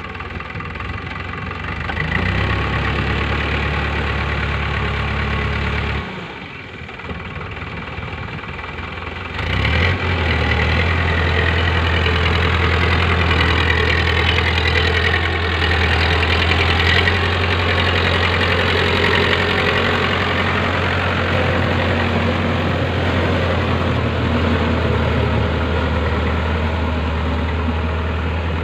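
Diesel engine of a Powertrac Euro 55 tractor running steadily under load as it drives a rotavator through flooded paddy mud. The engine sound drops away for about three seconds a quarter of the way in, then comes back louder and holds steady.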